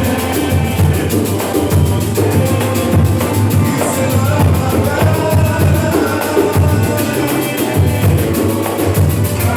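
A batuque percussion group playing drum-driven music: low drum beats under rapid, even high strokes, with pitched instrument lines over them.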